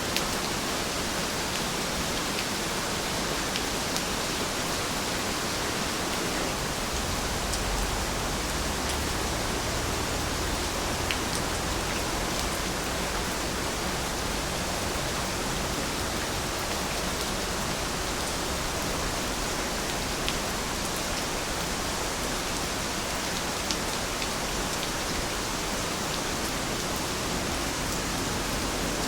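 Steady rain falling, an even hiss with a few sharp drip ticks here and there.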